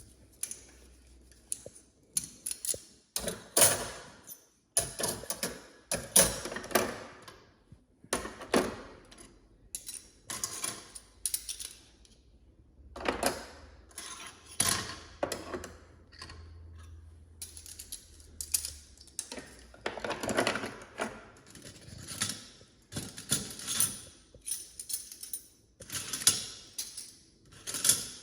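Metal cutlery clinking and clattering as spoons, knives and forks are sorted by hand into a drawer organiser tray, in irregular clusters of sharp clinks.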